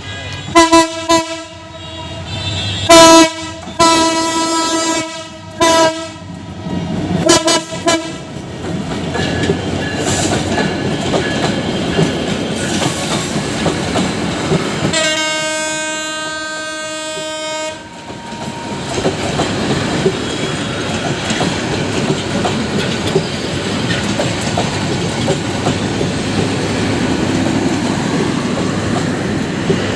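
Locomotive horn sounding a series of short and longer blasts over the first eight seconds, then one long blast about fifteen seconds in. Between and after the blasts a passing train runs with a steady rumble and rhythmic wheel clatter on the rails.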